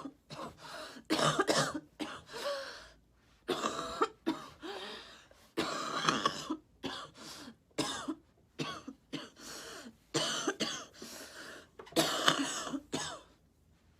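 A woman coughing in a long fit: a dozen or more coughs in clusters with short gaps between, mixed with throat clearing, from a head cold with congestion.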